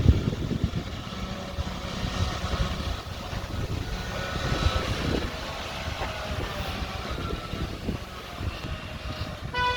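Heavy vehicle engine running with a low rumble and faint whining tones drifting in pitch. Right at the end a horn begins to sound.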